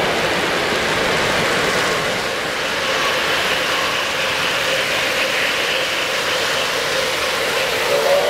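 O-scale three-rail model trains running on metal track, a steady mechanical rumble and clatter of wheels with motor hum. Near the end a model train's steam whistle starts sounding, a chord of steady tones.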